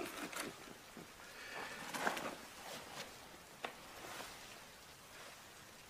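A hand rummaging in a black bag: cloth and leather rustling with several small clicks and knocks, the busiest about two seconds in, and a sharp click about three and a half seconds in.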